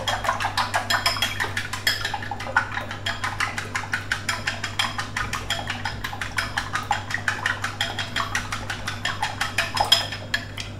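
Wooden chopsticks beating eggs in a ceramic bowl: a quick, even clatter of about seven taps a second against the bowl, with one louder clink near the end.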